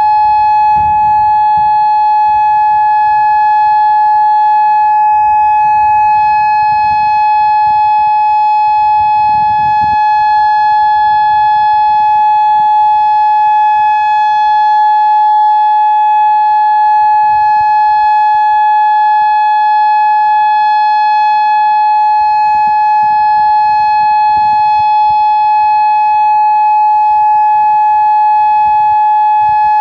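Federal Signal Modulator II 3012B electronic siren sounding its steady alert tone during a siren test: a single loud, unwavering pitch with no rise or fall.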